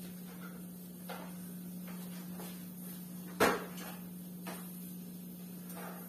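A single sharp knock about three and a half seconds in, with a few softer taps around it, over a steady low hum.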